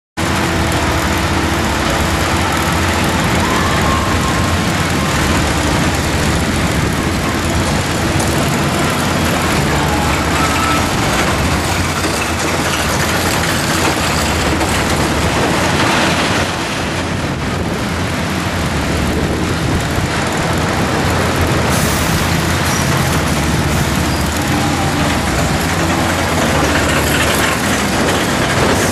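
Caterpillar kiddie coaster running on its track: a steady loud rumble and rattle of the cars, with heavy wind rush on the microphone as it moves.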